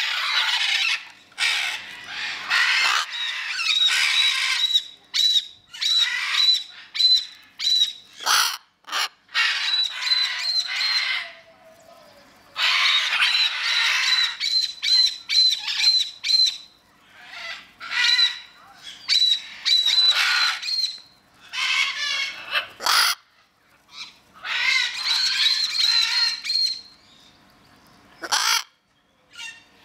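Blue-and-gold macaws squawking: harsh, raspy calls in repeated bouts of a few seconds with short pauses between.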